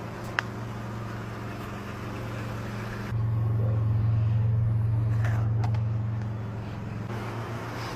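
Vehicle engine idling steadily with a low hum. It gets louder for about three seconds from around three seconds in, then eases back. A single sharp click sounds within the first second.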